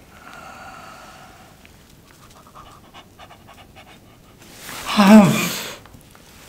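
Faint clicking mouth sounds, then a man's loud, wavering, drawn-out moan of exaggerated pleasure about four and a half seconds in, lasting over a second.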